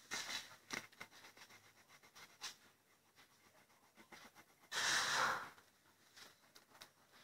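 Crayon scratching on paper in short strokes, thinning out over the first few seconds. About five seconds in comes a loud breath close to the microphone.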